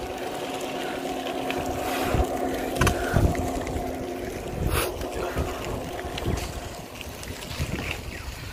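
Wind buffeting the microphone of a phone carried on a moving bicycle, over a steady motor drone that fades out about six and a half seconds in, with a few light knocks.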